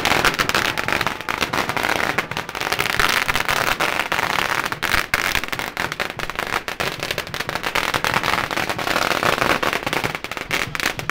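Masses of firecrackers going off all at once, a dense continuous crackle of rapid pops that cuts off abruptly at the very end.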